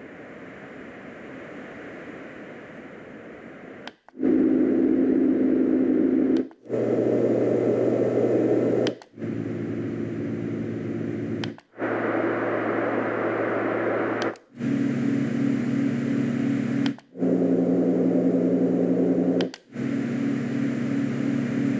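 LectroFan Evo white noise machine cycling through its sounds: first a quiet, steady rushing noise, then from about four seconds in a run of seven louder electronic fan sounds. Each fan sound is a whooshing whir with a steady hum, cut off every two to three seconds by a brief silence as the next one is selected.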